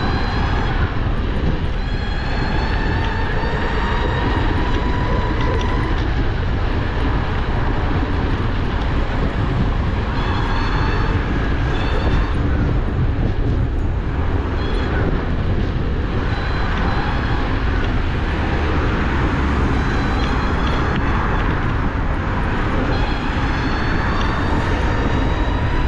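Wind rushing over the microphone of a moving electric scooter, with the high whine of its stock brushless motor, driven through a step-up voltage module, slowly rising over the first few seconds and then fading in and out.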